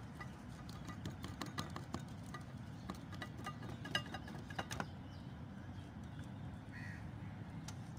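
Metal fork clicking and tapping against a ceramic bowl of mashed potatoes, a run of irregular light clicks that thin out after about five seconds, over a steady low rumble.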